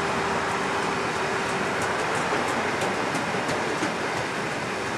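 Loaded cement hopper wagons of a freight train rolling past close by: a steady rumble of steel wheels on rail, with scattered short high-pitched squeaks.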